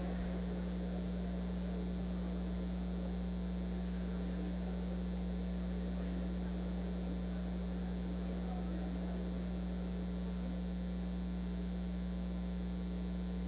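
Steady electrical mains hum from the chamber's microphone and broadcast audio chain, one unchanging low tone with no other clear sound over it.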